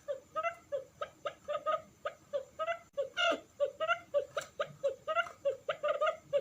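Quail calling a rapid, chattering series of short notes, about four or five a second, the kind of call used to lure wild quail.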